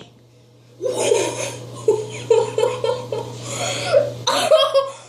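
A person laughing: a run of high-pitched, breathy laughs lasting about four seconds, starting about a second in, over a steady low hum.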